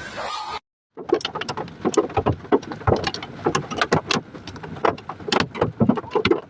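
Hailstones hitting hard surfaces in a storm: a dense, irregular run of sharp cracks and bangs, several a second, starting about a second in after a brief gap, with rain noise underneath.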